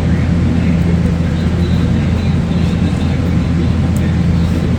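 A steady low machine hum that does not change, with a few faint light ticks over it.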